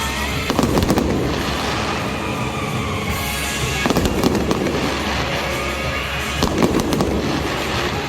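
Fireworks going off in three quick clusters of bangs, about every three seconds, over music playing throughout.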